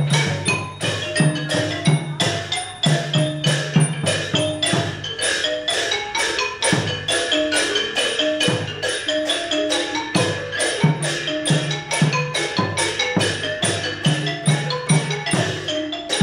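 Thai classical dance music of the piphat kind: fast xylophone and gong-like mallet notes over a steady beat of about four strikes a second, with a recurring low drum tone.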